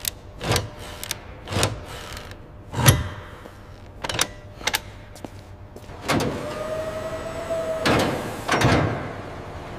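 A series of sharp knocks and clunks, about eight, irregularly spaced, over a steady background hum, with a short held tone in the second half.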